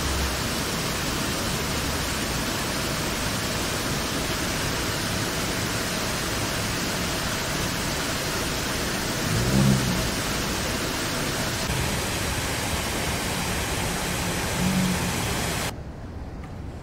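Steady rushing hiss, with two brief low swells, the first about nine and a half seconds in and the second about fifteen seconds in; it drops suddenly to a much quieter hiss near the end.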